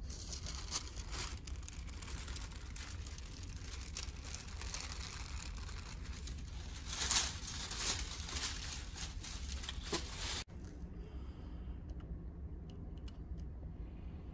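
Sheets of tissue paper and newsprint rustling and crinkling as they are lifted off a freshly pressed collagraph print, loudest around seven seconds in. The rustling cuts off suddenly about ten seconds in, and a few faint clicks follow.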